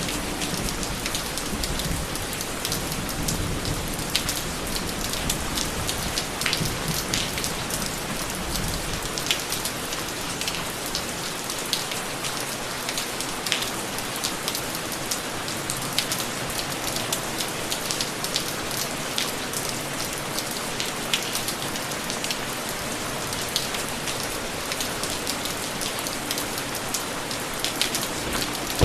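Steady heavy rain falling, a dense hiss with many sharp drop ticks. A low rumble underneath in the first third fades out.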